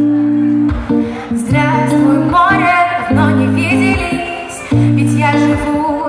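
Pop song intro playing loudly, with guitar and a female voice singing without words.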